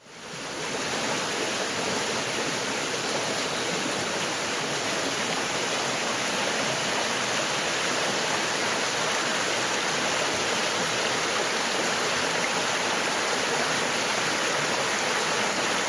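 Small river's waterfall rushing steadily, a continuous sound of falling water that fades in over about the first second.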